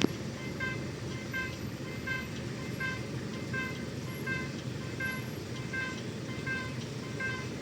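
Low rumble of a TCDD DE 33000-class diesel-electric freight locomotive. Over it, a short electronic warning chime repeats evenly about every two-thirds of a second.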